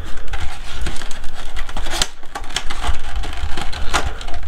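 Cardboard box and packaging being opened and handled by hand: rustling, crinkling and many small clicks and scrapes, with sharper crackles about two seconds in and again near the end.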